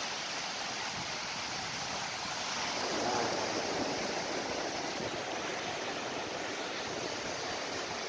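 Small sea waves breaking and washing in over the shore: a steady rush of surf that swells a little as a wave breaks about three seconds in.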